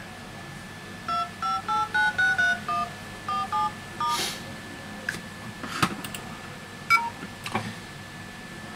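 Touch-tone keypad tones from a Huawei P9 Plus's dialer: a quick run of about ten short two-tone beeps, one for each digit pressed. A few sharp taps and clicks follow.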